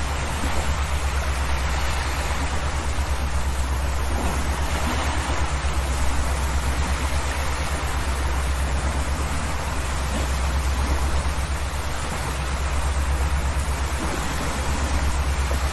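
Steady low drone of a ferry's engines under way, with an even rush of wind and water over it.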